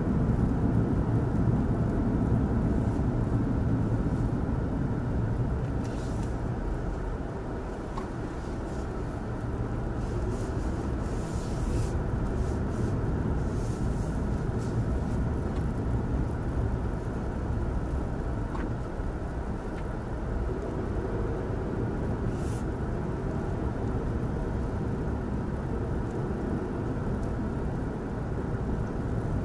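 A car driving, heard from inside the cabin: a steady low rumble of engine and road noise, with a few short hissing sounds over it.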